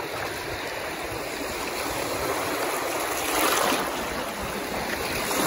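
Lake water rushing and lapping around an inflatable water trampoline, a steady wash of noise that swells briefly about three and a half seconds in.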